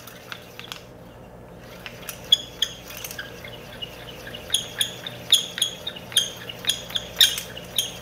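Sling psychrometer being whirled around its handle, clicking once with each turn in a quick regular rhythm of about two to three clicks a second. The clicking starts about two seconds in and grows louder about halfway through.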